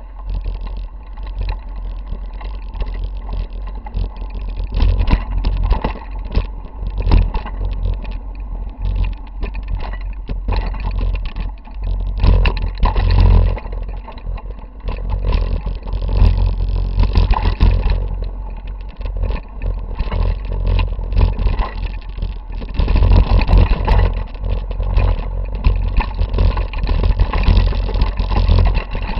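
Mountain bike rolling over rocky trail, heard through a handlebar-mounted camera: steady rattling and jolting clatter with many small knocks over a heavy low rumble.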